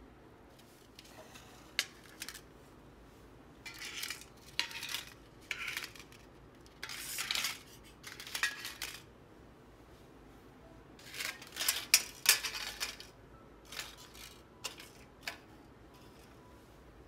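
Disposable aluminium foil egg tart cups being separated from a stack and set down one by one, with crinkling rustles and light metallic clicks in irregular bursts.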